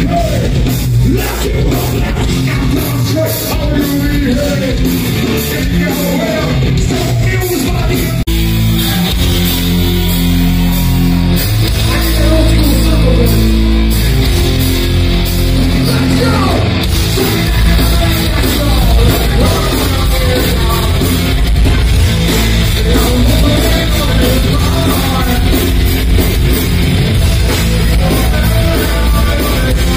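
Live heavy rock band playing loud through a club PA: distorted guitars, drums and a singer. The low end gets heavier about eight seconds in.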